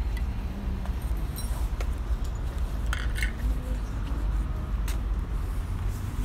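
Steady low outdoor rumble with a few sharp clicks, one of them a brief metallic clink about a second and a half in.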